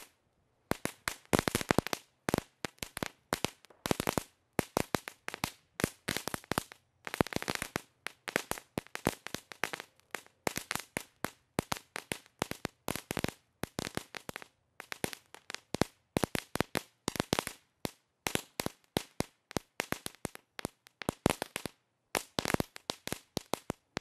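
'Fury' ground firework crackling as it sprays sparks: rapid strings of sharp little pops in dense clusters, broken by short pauses.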